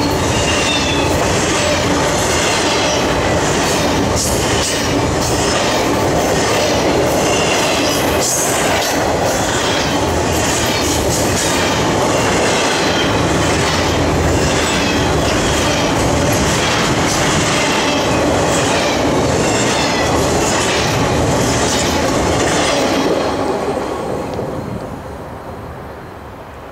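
Empty intermodal flatcars of a freight train rolling past at speed: a steady wheel-on-rail roar with a regular clatter over rail joints and a thin wheel squeal. The roar falls away quickly about 23 seconds in as the last car goes by.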